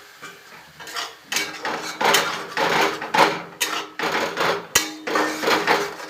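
Masala paste being stirred in a kadai: a utensil scrapes and knocks against the pan at about two strokes a second, starting after a quieter first second.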